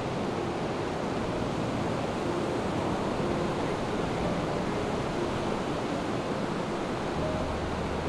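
Ocean surf breaking on a sandy beach: a steady wash of waves.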